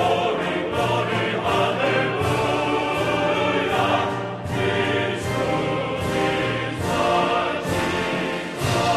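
Background music, full and steady, made of sustained layered chords.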